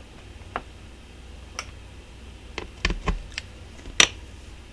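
Scattered small clicks and taps of RC axle parts and a small screwdriver being handled while the axle is pulled apart, about seven in all, the loudest a sharp click about four seconds in.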